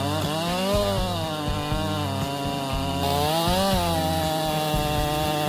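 Chainsaw running at high speed, its engine pitch rising and falling back twice, about a second in and again after three seconds.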